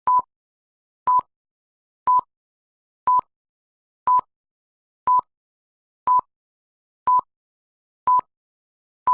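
Short electronic beep of one steady pitch, repeated evenly about once a second with silence in between, like a countdown or test tone.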